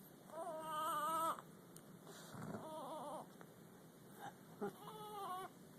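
Baby fussing: three short, wavering whimpering cries, the first the longest and loudest at about a second.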